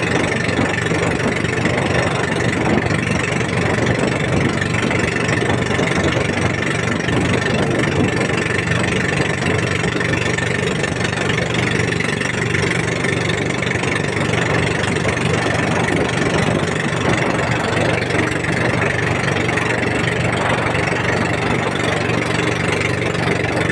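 Engine of a motorized outrigger fishing boat (bangka) running steadily while the boat is under way, at an even pace with no change in speed.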